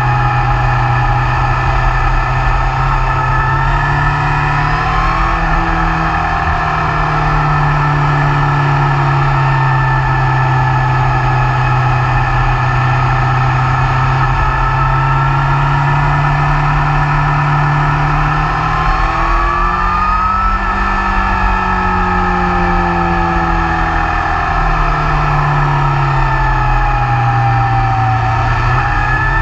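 BMW S1000R's inline-four engine running under way, its pitch climbing about four seconds in and again near the twenty-second mark, then easing off slowly as the revs drop. A steady low rumble of wind on the microphone runs under it.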